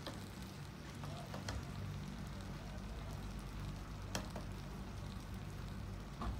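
Onion and tomato frying gently in a pan on a low flame: a faint, steady sizzle over a low hum, with a few light clicks as spoonfuls of chilli powder go in.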